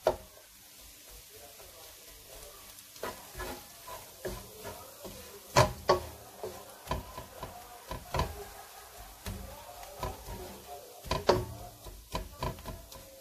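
Wooden spatula stirring and mashing minced meat and boiled potato in a non-stick wok, with irregular scrapes and knocks against the pan. A few knocks stand out, about five and a half seconds in and again near eleven seconds.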